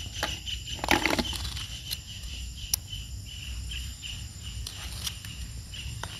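Hands scooping and squishing wet sand and muddy water while digging for snails, with scattered small clicks and one louder wet burst about a second in. An insect's steady high trill carries on behind it.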